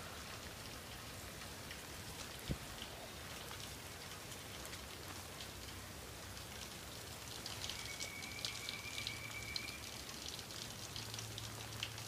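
Steady rain falling on grass and standing puddles, with close raindrop taps that grow denser in the last few seconds. A single sharp knock about two and a half seconds in.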